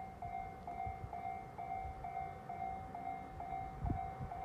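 Japanese railway level-crossing warning bell ringing, a steady electronic ding repeating about twice a second, over a low outdoor rumble.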